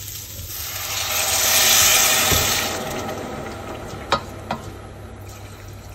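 Water poured from a plastic measuring jug onto rice toasting in hot olive oil in a stainless steel pot, setting off a loud sizzling hiss that swells over about two seconds and then dies away. Two short sharp clicks come near the end.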